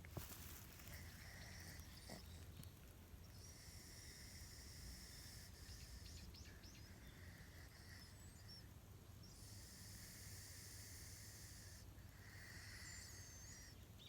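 A sleeping domestic cat snoring faintly. Behind it, a faint high hiss comes and goes in stretches of a few seconds.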